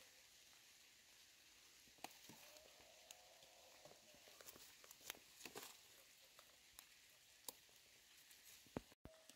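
Near silence: a faint steady hiss with scattered soft taps and clicks.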